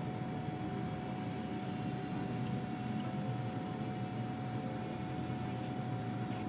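A steady machine hum with a constant whine held on one note and a few faint ticks over it.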